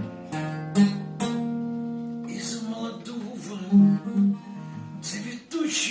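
Acoustic guitar strummed, with chords ringing on between several sharp strums.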